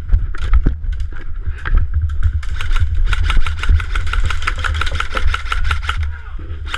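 Airsoft guns firing: scattered single shots, then a rapid full-auto burst of about nine shots a second lasting some three and a half seconds that stops abruptly. Heavy wind and handling rumble on the helmet camera's microphone runs under it.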